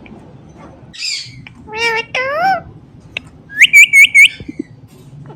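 Indian ringneck parrot calling: a harsh note about a second in, two drawn-out calls that rise and fall in pitch like talking, then four sharp, loud, high-pitched chirps in quick succession.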